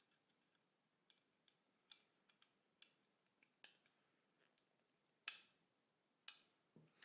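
Small steel parts of an MG42 trigger grip clicking and tapping as they are handled: a run of light clicks, with two sharper clicks about five and six seconds in.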